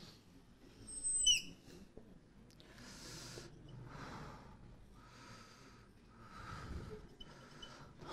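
Marker pen on a whiteboard: a brief high squeak about a second in, then about five short scratchy strokes as lines are drawn.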